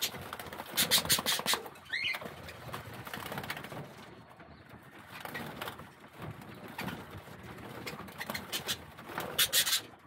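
Budgerigars bathing in a bowl of water: two bursts of rapid wing-beating splashes, about a second in and near the end, with a short rising chirp about two seconds in and soft bird calls between.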